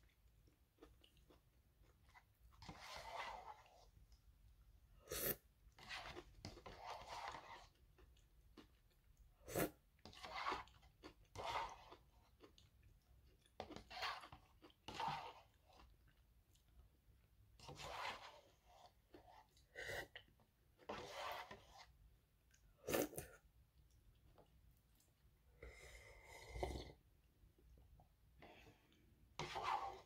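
Eating the last noodles and broth of a bowl of tonkotsu ramen: chewing and slurping in separate short bouts every second or two, with a few sharp clicks.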